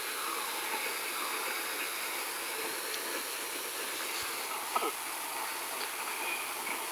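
Steady hissing running noise from a Dyson Contrarotator washing machine on its main wash, with a brief squeak about five seconds in.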